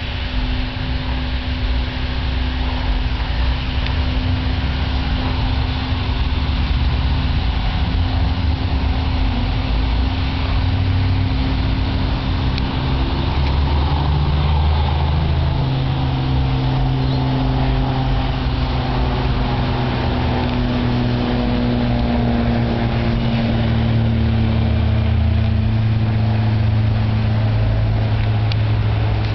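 Cessna 172 Skyhawk's piston engine and propeller droning steadily as the light plane flies overhead, the pitch sinking slightly over the second half.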